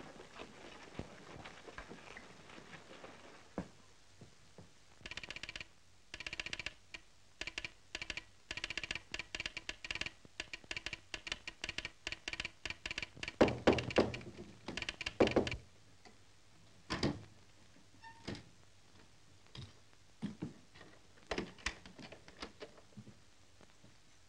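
Telegraph sounder clicking out a Morse-code message in irregular runs of sharp clicks, a coded wire coming over the line. The clicks start about five seconds in, are loudest about halfway through, and thin out near the end.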